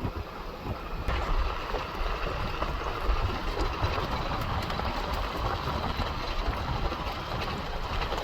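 A vehicle driving over a washboard dirt road: steady road rumble with continual small rattles and bumps.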